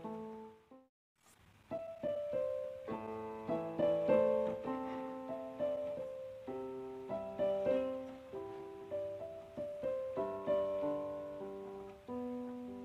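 Piano music, with a short break about a second in before the notes resume.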